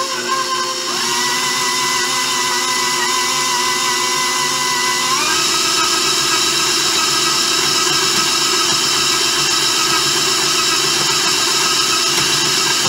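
KitchenAid stand mixer motor running steadily as its dough hook kneads pie crust dough in the steel bowl. The motor whine steps up in pitch about a second in and again about five seconds in.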